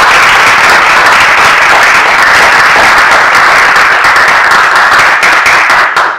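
Audience applauding, loud and steady, dying away near the end.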